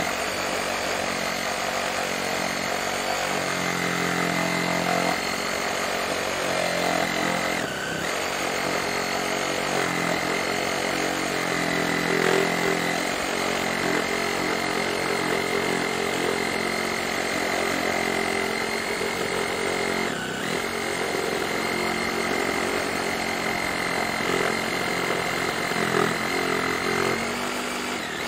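Bull BL 523 cordless reciprocating saw running continuously, its blade cutting through a fresh rubber tree branch, with a steady motor whine; the saw falters briefly twice, about eight and twenty seconds in.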